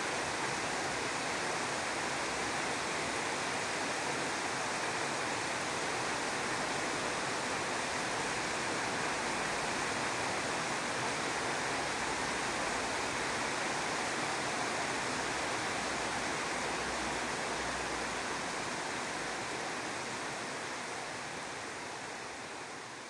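Shallow river running over gravel: a steady rush of water that fades out over the last few seconds.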